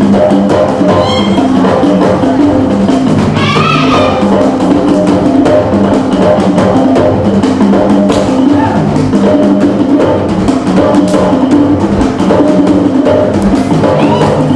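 Music with drums and percussion playing a steady, busy beat under sustained pitched notes, with a brief wavering call about four seconds in.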